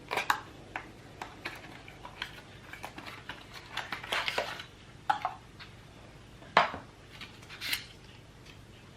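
Irregular clicks, taps and short scrapes of hands handling an iPhone box, its cardboard and plastic packaging and the phone, with a longer rustling scrape in the middle and the sharpest knocks near the start and about two-thirds of the way in.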